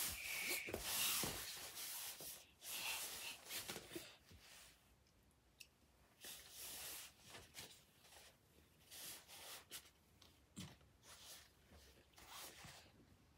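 Faint rustling and scraping, busiest in the first few seconds, then sparse softer rustles and light clicks: a toddler shifting about on a fabric play-tent floor and picking food out of a bowl.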